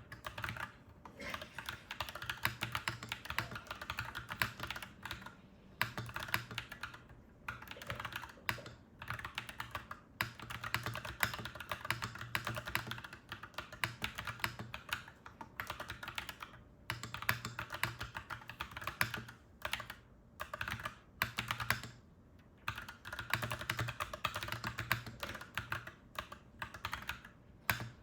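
Typing on a clacky mechanical keyboard: quick runs of key clacks lasting a few seconds each, broken by short pauses.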